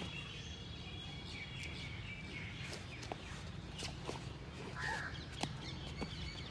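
Birds chirping over steady low outdoor background noise, with scattered soft knocks and scuffs of bodies and bare feet on foam mats.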